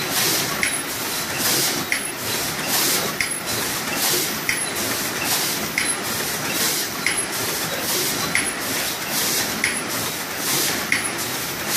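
Paper popcorn cup forming machine running in a steady production cycle: a repeating stroke about one and a half times a second, each with a short high tone, over a constant mechanical run.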